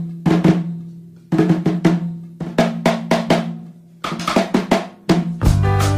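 Background music with drum hits in quick clusters. The hits ring out between the clusters, and a full backing track with bass and chords starts about five and a half seconds in.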